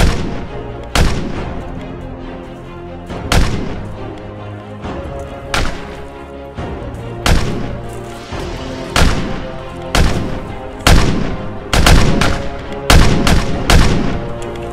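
Gunshots from rifles, single sharp shots each ringing out briefly, at first about a second apart and then coming in quicker clusters near the end, over background music.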